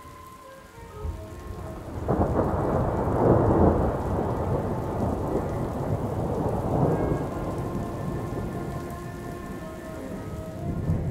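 Steady rain, with a clap of thunder breaking about two seconds in and rumbling on, slowly fading.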